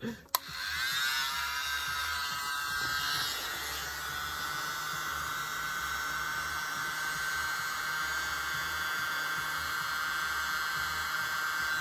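Miniature hand-held electric leaf blower (the World's Tiniest Blower) switched on with a click and spinning up, its whine rising over the first couple of seconds, then running with a steady high whine.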